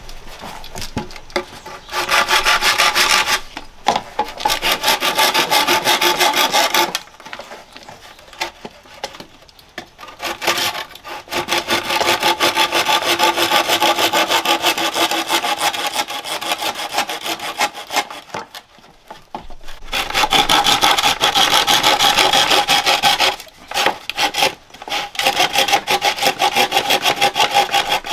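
A hand saw cutting through wood with fast, rasping strokes. It works in about five bouts of a few seconds each, with short pauses between them.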